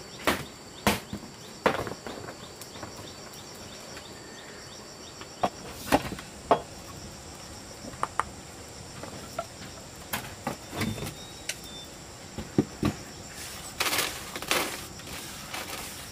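Insects droning steadily at a high pitch, with scattered sharp knocks and clatter of handled objects, and a brief rustle near the end.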